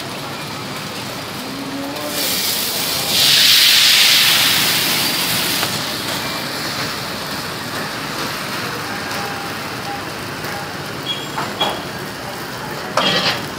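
Batter poured into a wok of hot oil, setting off a loud burst of sizzling about two seconds in that eases to a steady frying hiss. A few short knocks come near the end.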